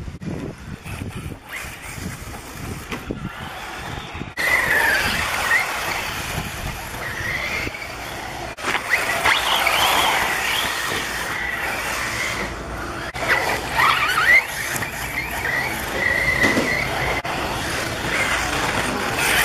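Electric 1/8-scale RC buggy's motor and drivetrain whining as it drives over the whoops, the pitch rising and falling with the throttle. The whine comes in about four seconds in and swells loudest around the middle.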